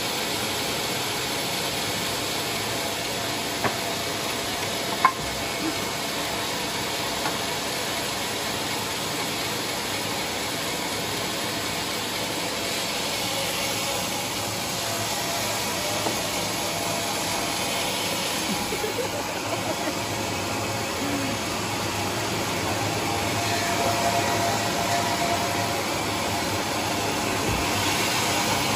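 Band sawmill running with a steady, even whirring hiss, with a couple of sharp knocks about four and five seconds in.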